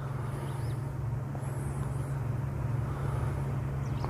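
Motorboat engine passing out on the lake: a steady low drone that slowly grows louder.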